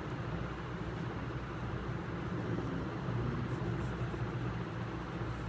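Steady low background hum and rumble with a faint hiss.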